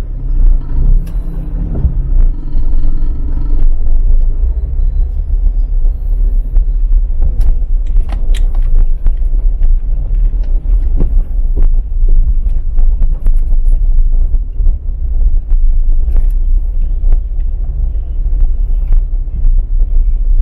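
Low, steady engine and road rumble heard inside a slowly moving car's cabin, with scattered light clicks and rattles.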